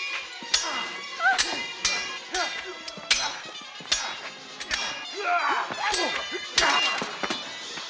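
Sword blades clashing in a staged fight: a run of about a dozen sharp metallic clangs, each ringing briefly, coming every half second to a second.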